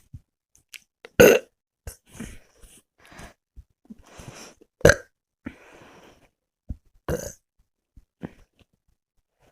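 A person burping repeatedly, bringing up gas from chugged Sprite. The loudest burp comes about a second in, two more strong ones follow near the middle and about seven seconds in, and shorter, softer burps fall between them.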